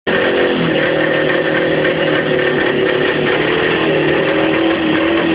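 Francis-Barnett Cruiser motorcycle's two-stroke engine running steadily at idle on its first run, the pitch drifting only slightly.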